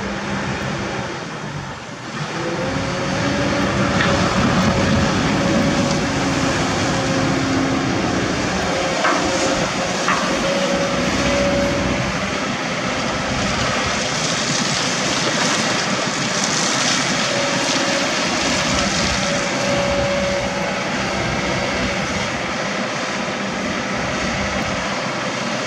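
Kobelco SK200 excavator's diesel engine running under load as it digs and swings. It gets louder about two seconds in, and a thin whine comes and goes over the engine.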